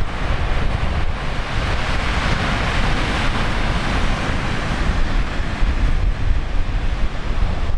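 Heavy typhoon surf crashing and surging on the shore, swelling louder about two to three seconds in, with strong wind buffeting the microphone.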